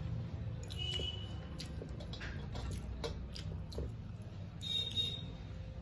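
Eating rice and fish curry by hand: soft wet squishing as fingers mix the food on metal plates, with chewing and small clicks scattered through. Two brief squeaks come about a second in and near the end, and a steady low hum runs underneath.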